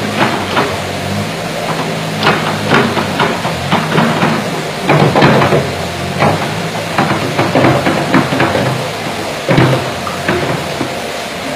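Small wheel loader's engine running steadily while its steel bucket scrapes along a concrete floor, with irregular clanks and knocks over the engine drone.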